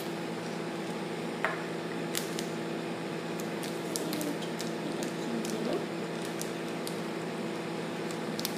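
Faint clicks, taps and squishes of a small plastic bottle and cap being handled and closed. A steady background hum runs throughout.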